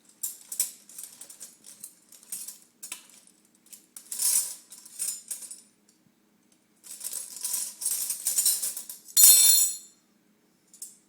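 Metal spoons clattering and jangling together in a series of bursts, with a pause of about a second midway and the loudest clatter about nine seconds in.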